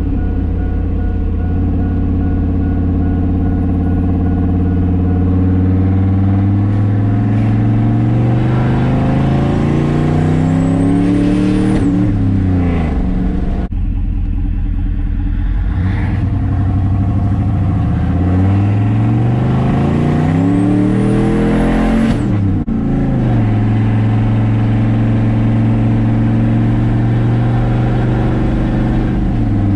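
Turbocharged GMC Sierra pickup engine pulling twice under acceleration: the revs climb with a rising turbo whistle, and each pull is cut short as the revs suddenly drop. On the second pull the charge pipe blows off its coupler at about 5 psi of boost. The engine then runs steadily at cruise.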